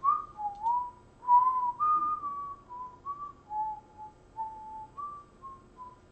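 A person whistling a short tune: a dozen or so clear single notes that step up and down over about six seconds.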